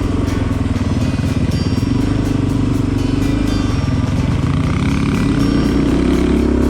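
Motorcycle engine running under way, its pitch rising about five seconds in as it speeds up, with music with a steady beat alongside.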